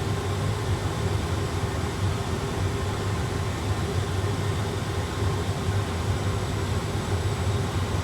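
Steady rushing noise with a low hum in an A320 flight simulator cockpit on final approach, gear down and flaps full.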